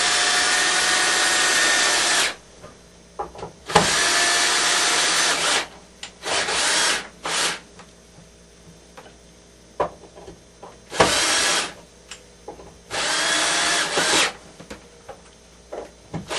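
Power drill-driver running in short bursts, driving screws back in to hold the axe head in place. There are about five bursts with pauses and small clicks between them, and the motor's pitch climbs as a burst starts.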